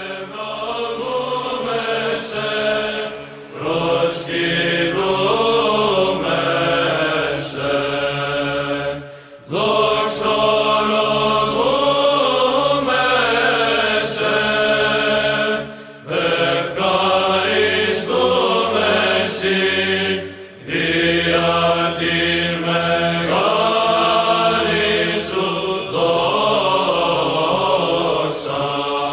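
Orthodox church chant: a slow melody sung over a steady held low drone, in long phrases with brief breaks between them.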